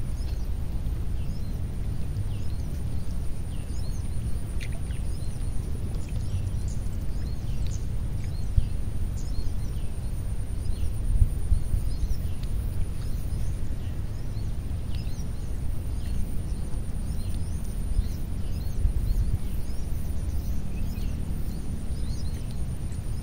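Waterside ambience: many short, high bird chirps scattered over a steady low rumble, with a thin, steady high-pitched whine.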